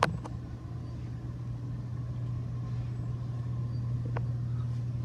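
Steady low mechanical hum, with a sharp click right at the start and a fainter tick about four seconds in.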